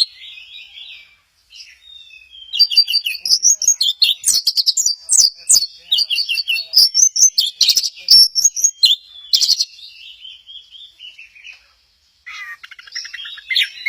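Orange-headed thrush singing a fast, varied song of chirps and warbles. The song softens, stops briefly after about eleven seconds, then starts again.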